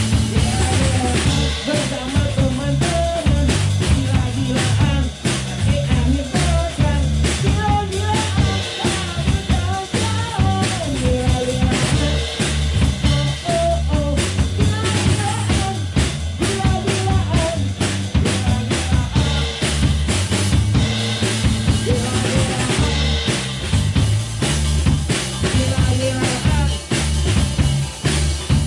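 A live band playing a song: drum kit, electric bass and electric keyboards keeping a steady beat, with a singer on a handheld microphone carrying the melody.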